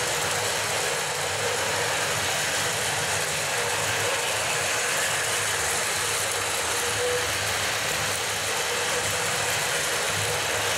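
Several battery-powered Plarail toy trains running on plastic elevated track, their small motors and gearboxes making a steady mechanical whir.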